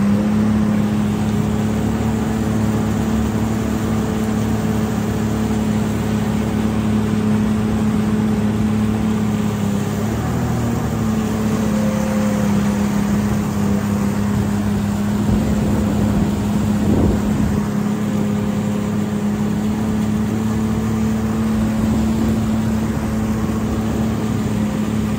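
Jet ski engine running at a steady cruising speed, one constant drone with no change in pitch.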